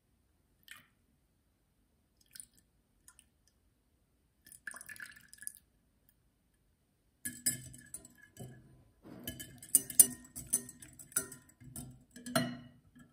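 Small hard objects clinking and knocking as they are handled and set down. A few faint taps come first, then a denser run of clatter in the second half.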